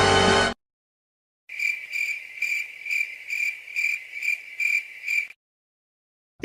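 Crickets chirping sound effect: a high, steady chirp repeated about twice a second, around nine times, then stopping. A burst of music cuts off about half a second in, before the chirping starts.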